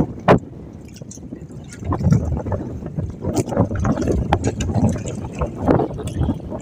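Choppy sea water sloshing and slapping against the hull of an outrigger bangka, in irregular surges with a few light knocks.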